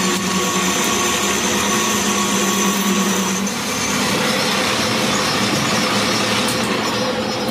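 Metal lathe running, turning a steel shaft: a steady machine hum with a few held tones, the sound of the cut changing about three and a half seconds in.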